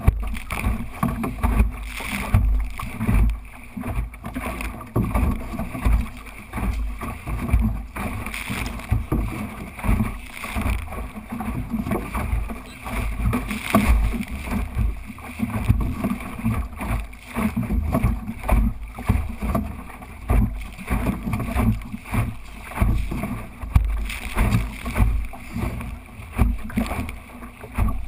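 Water rushing and splashing along the hull of a small sailing dinghy under way, with wind buffeting the microphone in uneven gusts.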